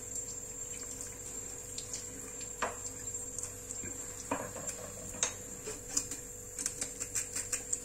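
A few scattered light clicks and taps, like small tools being handled on a work surface, over a faint steady hum.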